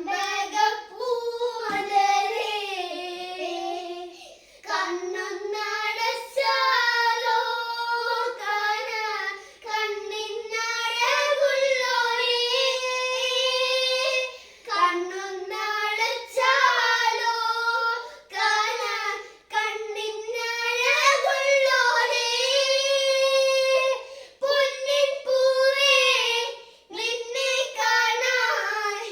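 Children singing a Malayalam folk song (nadan pattu) unaccompanied, in high voices with phrases broken by short breaths, in a small room.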